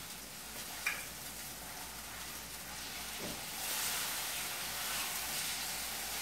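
Hot oil sizzling steadily in a skillet as food fries, growing louder about three and a half seconds in. A light utensil click comes about a second in.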